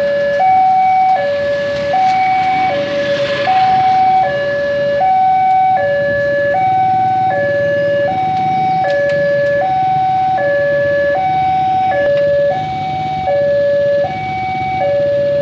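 Railway level-crossing warning alarm sounding from the horn loudspeaker on the crossing signal post: two alternating tones, high then low, each held about three-quarters of a second, repeating steadily, the signal that the barriers are down and a train is approaching. A low hum of waiting road traffic runs underneath.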